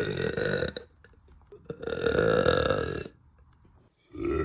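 A woman belching, deep and loud: one belch trails off under a second in, a second long belch of about a second and a half follows, and a third begins right at the end.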